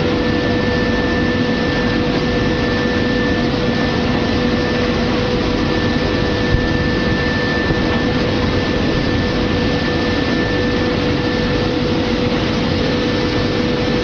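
Dates bubble-washing and high-pressure spray washing machine running: a steady rush of water spraying and churning, with a constant machine hum underneath.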